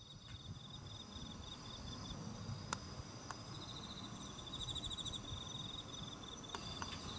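Crickets and other insects singing in a steady chorus of high trills, with one pulsed chirping trill growing stronger around the middle. A few sharp clicks cut through it, the loudest nearly three seconds in.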